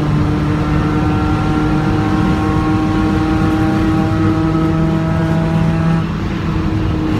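Car engine heard from inside the cabin on a race track, pulling under load with its revs climbing slowly, then easing off about six seconds in, over steady road and wind noise.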